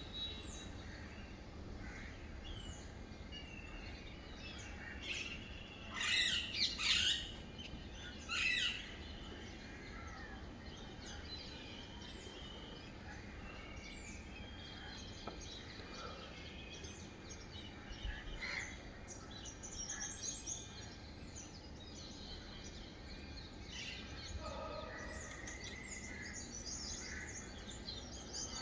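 Birds chirping and calling: many short, quick high notes throughout, with a louder cluster of calls about a quarter of the way through, over a steady low background noise.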